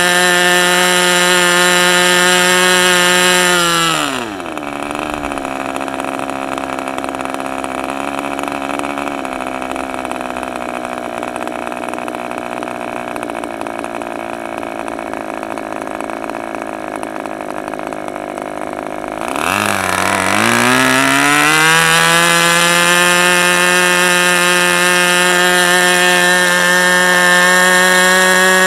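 OS 32F ABC two-stroke glow model engine on a test stand, running at full throttle on its first run. About four seconds in it is throttled back, its pitch falling steeply to a steady idle that holds for about fifteen seconds, then it is opened up again and climbs back to a full-throttle whine by about twenty-two seconds.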